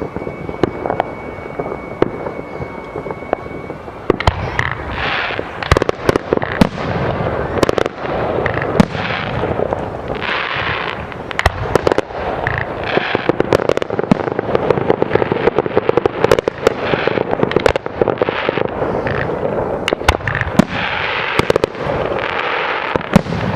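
Fireworks display: sharp bangs from exploding aerial shells, thickening about four seconds in into a near-continuous barrage of bangs and crackling.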